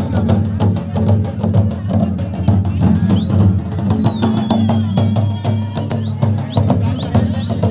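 Live drumming on large shoulder-slung barrel drums, with fast, dense strokes. A high whistle sounds for about two seconds near the middle, then short rising whistle chirps repeat toward the end.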